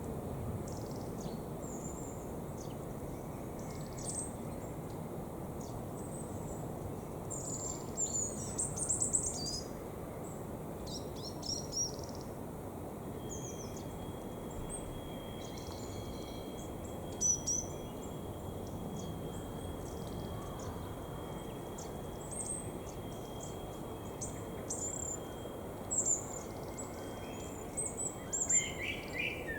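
Small birds chirping and singing in short scattered calls over a steady low background noise. A thin, steady high tone runs through much of the middle.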